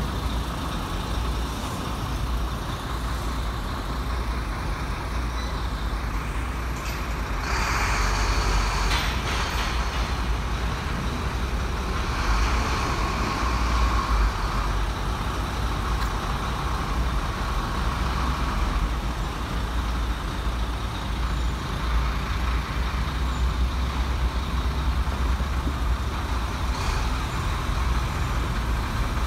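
Vietnam Railways passenger train rolling away along the track, a steady low rumble, with a brighter hiss for about two seconds around eight seconds in.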